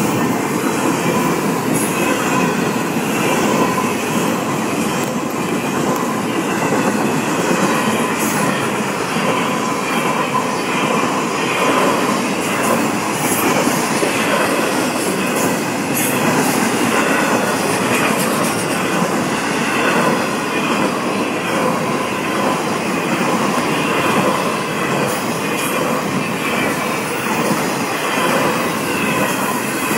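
Florida East Coast Railway intermodal freight train rolling steadily past, its flatcars loaded with trailers and containers, with a constant rumble of wheels on rail and a thin, wavering squeal from the wheels.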